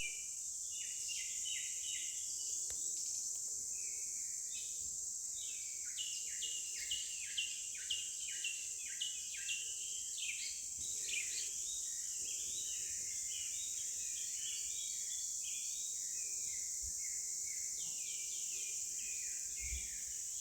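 Outdoor nature ambience: many small birds chirping in short, quickly repeated falling notes over a steady high-pitched insect drone.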